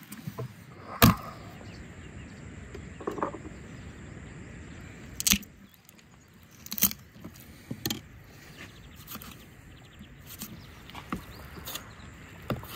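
A raw lamb carcass being handled and cut with a knife on a wooden board: sharp knocks and clicks at irregular intervals, the loudest about a second in, over a steady low background noise.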